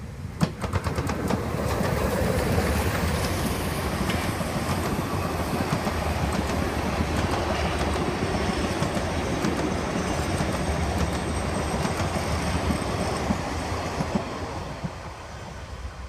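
Narrow-gauge steam locomotive 99 1793-1 and its coaches passing close by on the rails. The train's running noise swells over the first two seconds, holds steady while the coaches go past, and fades near the end as the train draws away.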